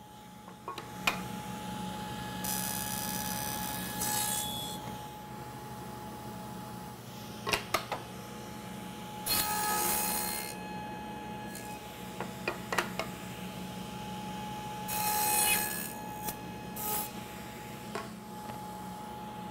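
Table saw with a dado blade running steadily, making three short cuts through the wood at about 3, 9 and 15 seconds in as it trims the cheeks of a stub tenon. Between the cuts, pieces of wood knock together as the tenon is test-fitted into the groove.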